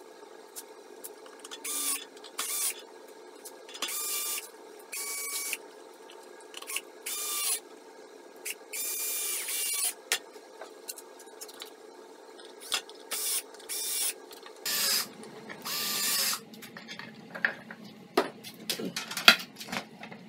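Cordless drill-driver driving screws into wood in a series of short bursts of motor whine. Knocks and clicks of wood being handled follow near the end.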